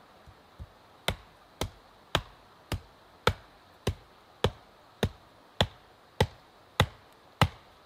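A hammer pounding the top of an upright wooden post to drive it into the ground: two light taps, then about a dozen sharp, evenly spaced blows, nearly two a second.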